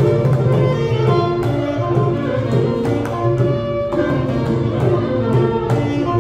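Carnatic ensemble of saxophone, violin and mridangam playing a kriti together: saxophone and violin carry the melody while the mridangam keeps up a run of drum strokes beneath.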